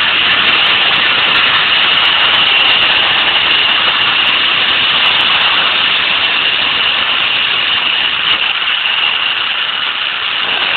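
Zip-line trolley pulleys running along a steel cable: a steady whirring with a high whine held throughout, easing slightly near the end.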